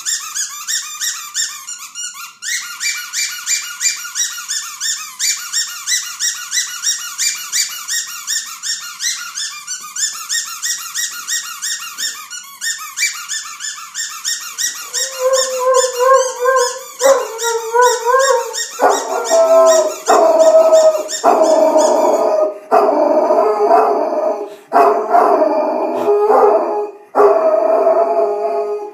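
A squeaky toy squeezed over and over, about two squeaks a second. About halfway through, an Irish Wolfhound starts howling at it, in long, louder howls broken by short pauses, and the squeaking fades out under the howls.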